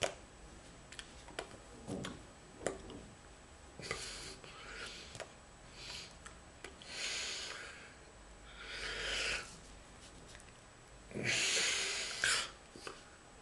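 A person's breathing, several short puffs and sniffs through the nose and mouth, the longest about eleven seconds in, with faint taps and rustles of hands and sleeves as he signs.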